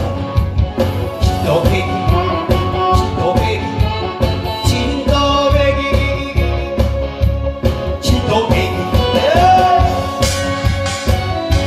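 A man singing a Korean trot song into a microphone over an amplified backing track with a steady beat, including a long wavering held note near the end.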